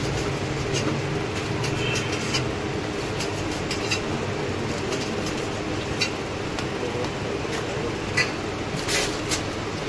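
Steady background noise of a busy street food stall, with scattered sharp clinks as a metal spatula knocks against the flat steel griddle.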